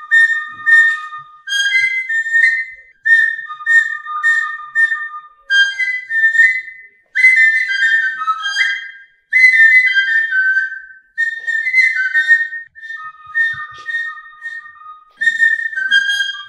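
Small hand-held flute playing a lively melody in short high phrases of a few notes each, with brief breaths between them.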